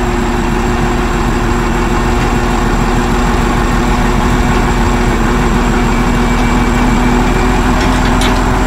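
Truck engine idling steadily: an even low rumble with a constant hum.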